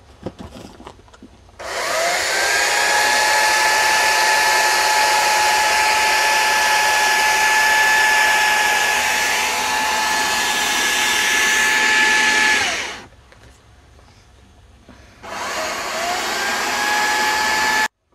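An electric woodworking power tool spinning up with a rising whine, running steadily for about eleven seconds and stopping. It then starts again for about three seconds and cuts off suddenly.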